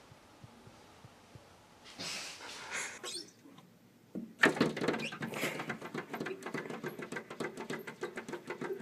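Paws tapping and scratching rapidly against a glass door pane, a quick run of sharp scratches that starts about halfway through.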